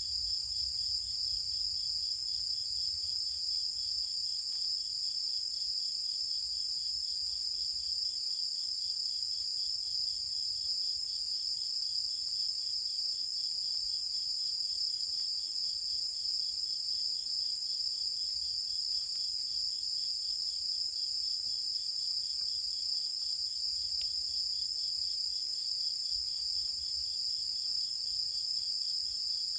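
A chorus of night-singing insects in the countryside: several steady high trills at different pitches, one of them pulsing rapidly, with no break.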